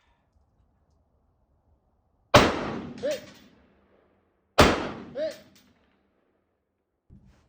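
Two rifle shots about two seconds apart, each sharp crack trailing off in an echo, and each followed by a short call of "Hit" confirming a hit on the target.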